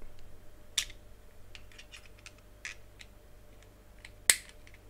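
Steel pliers clicking and clinking against the metal sleeve and wire spring of a disassembled keyless drill chuck as the spring is crammed into place: a string of small sharp clicks, the loudest about four seconds in.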